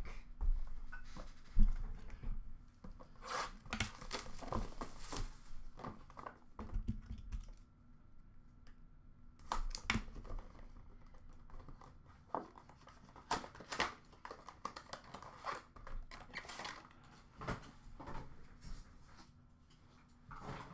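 A Leaf Metal Legends hockey card box being handled and opened by hand: cellophane wrapper tearing and crinkling, and the cardboard box scraping and knocking in irregular clicks and rustles. One sharp knock comes about a second and a half in.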